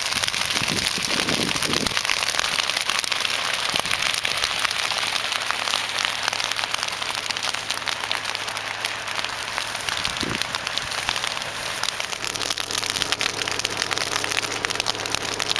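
Dry prairie grass burning in a backfire line, a dense, fast, steady crackle like rain on a surface.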